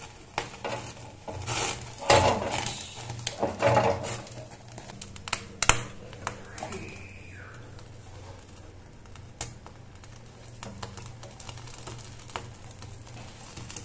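Clinks and knocks of a metal wire grill rack on a gas stove as food is moved on and off it, busiest in the first six seconds, over a steady low hum.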